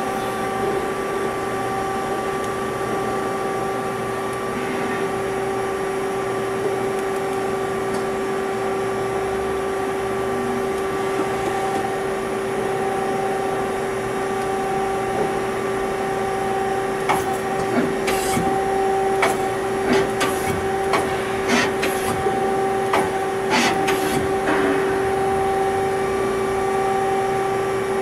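Mazak Multiplex 4200 twin-spindle CNC lathe running with a steady mechanical hum and a constant whine. About two-thirds of the way in comes a run of sharp clicks and clatter lasting several seconds.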